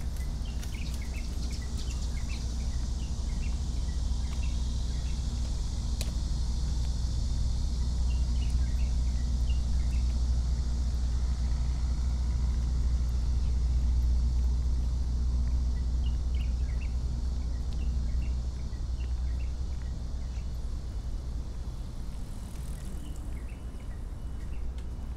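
Steady low rumble of road traffic, easing off about three quarters of the way through, with a faint high hiss and scattered short high chirps above it.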